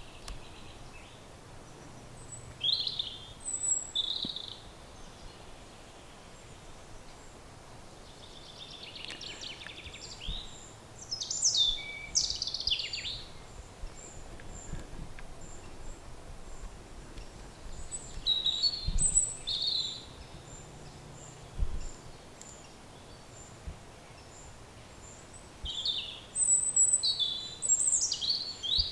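Wild birds calling outdoors in short, sharp chirps, in several bouts a few seconds apart, over steady faint background noise.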